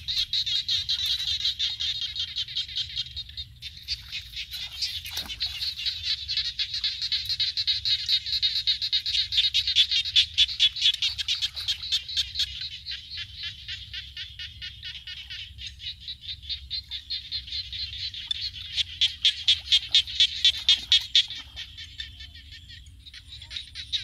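Chorus of frogs calling: many overlapping trains of rapid high-pitched pulsed calls, swelling and easing in waves, with a short lull near the end.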